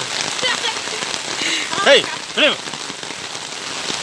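Hail and rain pelting a paved yard: a steady hiss flecked with quick ticks of hailstones. Two short rising-and-falling calls cut through about halfway in.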